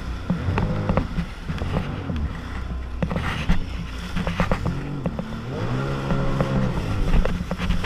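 Sea-Doo personal watercraft engine running under way, its pitch rising and falling several times as the throttle is worked, longest near the end. Sharp splashes and slaps of the hull on rough water cut in throughout.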